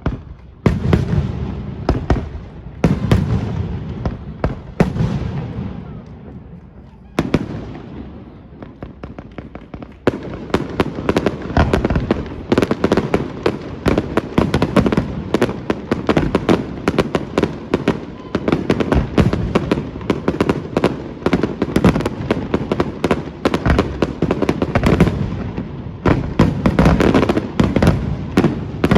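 Fireworks display: separate booming bursts, each fading away, for the first ten seconds or so. From about ten seconds in they give way to a dense, continuous barrage of rapid bangs and crackling.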